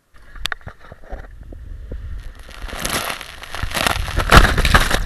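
Water rushing and splashing over an action camera as its rider slides down a water slide, building up and loudest near the end, with a few sharp knocks at the start.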